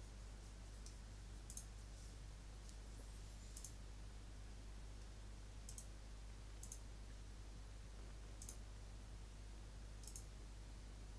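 Faint computer mouse clicks, about eight of them spaced irregularly a second or two apart, over a steady low electrical hum.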